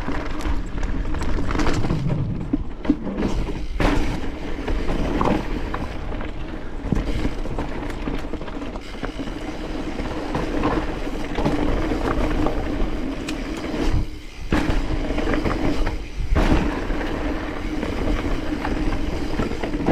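Mountain bike rattling and clattering down a steep rock trail: tyres, chain and frame knocking over rocks, with wind rumble on the microphone.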